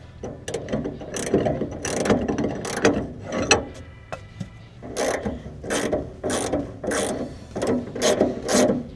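Socket ratchet clicking through repeated strokes while loosening a 5/8 in nut on a sway bar end link; the strokes turn into a steady run of about two to three a second in the second half.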